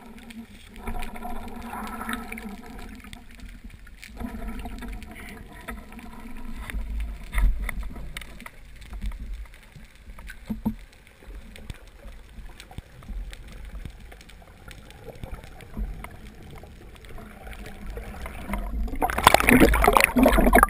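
Water gurgling and sloshing around a diver's camera, with faint scattered clicks and a low rumble. About nineteen seconds in, a loud rush of splashing water starts and keeps going.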